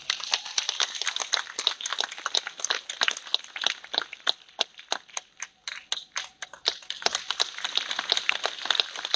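Hand claps, quick and uneven, several a second, with the music stopped.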